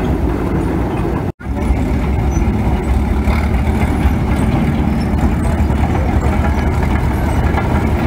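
A steam traction engine running briefly. After a sudden break, the engine of a Caterpillar HT4 Traxcavator crawler loader runs steadily with a deep low rumble as the machine drives past.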